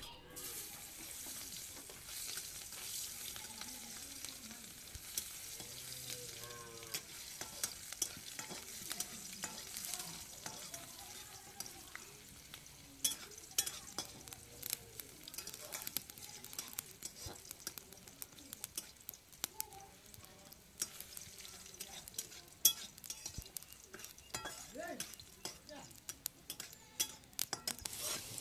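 Oil sizzling in a metal wok over a wood fire, with a flat metal spatula stirring and scraping in the pan, giving frequent short clicks over a steady faint hiss.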